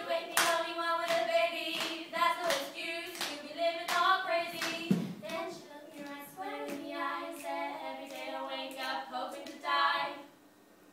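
Two women singing a cappella in held, sustained notes, with hand claps keeping a steady beat about twice a second; the singing and claps stop about ten seconds in.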